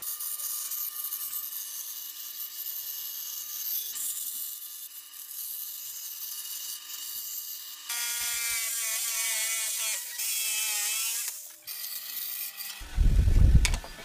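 Power saws cutting wood: a steady high cutting hiss for about the first eight seconds, then a jigsaw motor whining and wavering in pitch for a few seconds, and a brief loud low rumble near the end.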